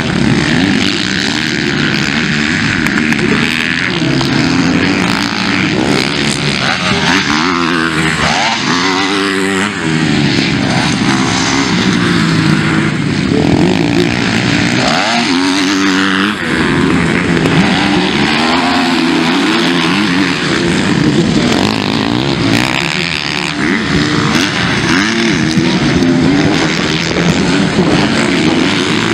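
Motocross dirt bikes racing on a dirt track, their engines revving up and down without a break, with the pitch climbing and dropping as bikes accelerate and shift.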